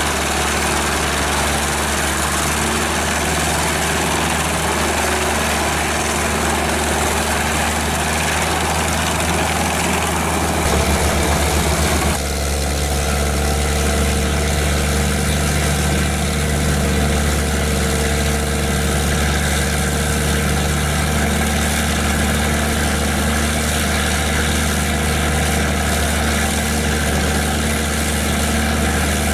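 Large industrial wood chipper running, its engine loud and steady, with the noisy grinding of wood being fed through for about the first twelve seconds; after that the chipping noise drops and mostly the engine is left.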